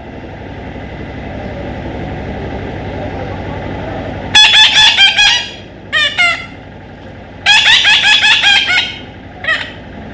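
Loud, harsh bird calls in several bursts of rapid chattering, the longest lasting about a second and a half, starting about four seconds in. They come after a low rumble that slowly builds.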